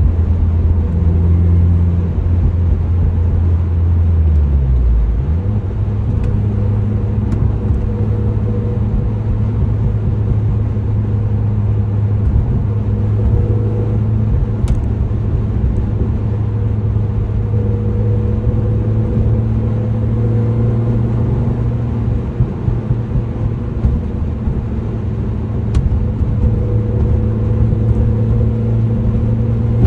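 Mini Cooper S R53 being driven, its engine and running noise steady, with a metallic grinding noise that comes only while driving and whose cause is not yet known. The engine note drops about five seconds in, then holds steady.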